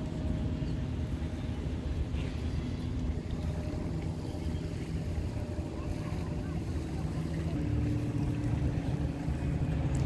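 A boat engine running at a low, steady hum, with wind rumbling on the microphone.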